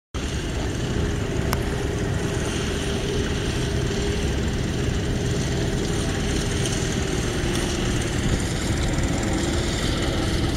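Massey Ferguson 420 tractor's 3.3-litre three-cylinder diesel engine running at a steady speed, with an even hum in its note and one faint click about one and a half seconds in.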